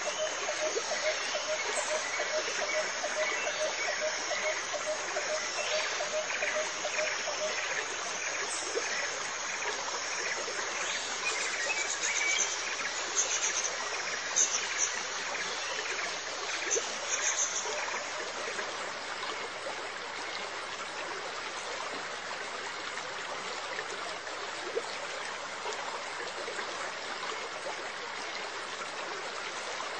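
Steady trickle and splash of water from an aquarium filter's return flow, over a faint low hum. There are a few short high chirps midway.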